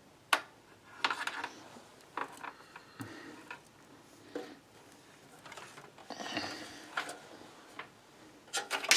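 Irregular clicks, taps and rustles of computer parts and cables being handled, a few sharp knocks among them, with a flurry of clicks near the end.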